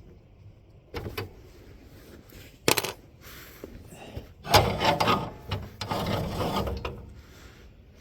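Hand tools and metal parts being worked on a lawn tractor: a click about a second in, a sharp knock near the three-second mark, then a couple of seconds of rattling and scraping as a part is worked loose.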